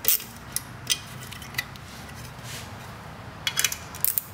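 A 1/4-inch ratchet with a 3/8 socket clicking in short spurts as the caliper cover's mounting nuts are tightened. There are a few single metallic clicks, a pause of about two seconds, then two quick runs of clicks near the end.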